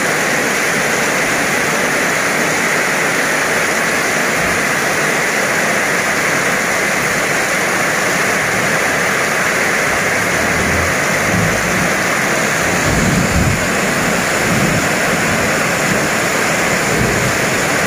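Steady rain falling, an even hiss, with a few low rumbles in the second half.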